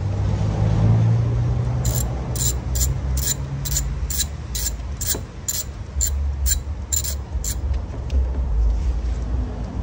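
A hand ratchet clicking in a steady run of about three clicks a second for several seconds while bolts on a Nissan intake manifold are worked loose, over a steady low rumble.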